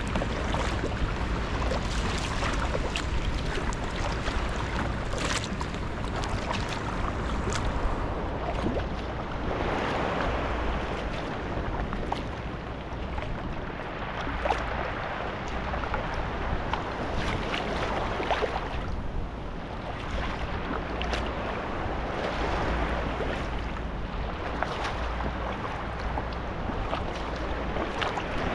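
Double-bladed paddle strokes splashing and water lapping along the hull of a Stellar S18 G2 sea kayak, with wind rumbling on the microphone.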